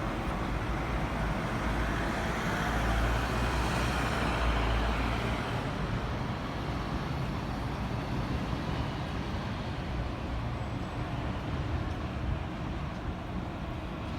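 City street traffic. One vehicle passes close with a deep rumble, loudest about four seconds in, then fades into steadier, quieter traffic noise.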